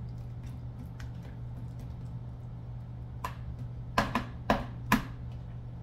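Metal fork clicking and scraping against a glass mixing bowl while mashing bananas, with a handful of sharp, louder clinks about three to five seconds in, over a steady low hum.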